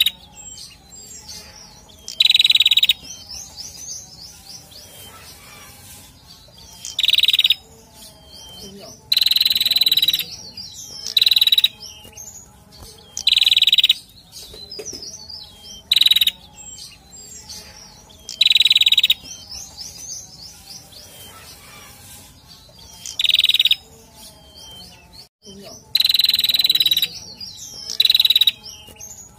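Male prenjak (a tailorbird) singing: loud, rapid call phrases of about half a second to a second, repeated every few seconds, with softer quick chips in between.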